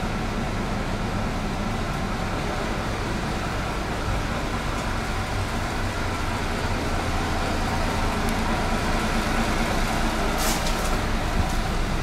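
Diesel bus engine running steadily, growing slightly louder in the second half, with a short hiss of air about ten seconds in.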